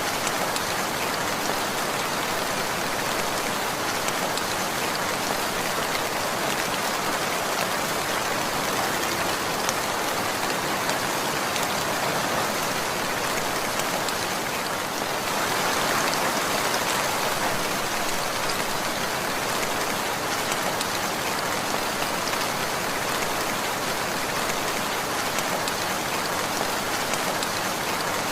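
Steady rainfall, the patter of many raindrops hitting a surface, swelling slightly about halfway through.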